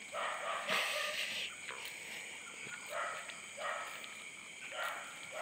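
Footsteps swishing through grass and vegetation, a soft irregular step every second or so, with insects chirring steadily behind them.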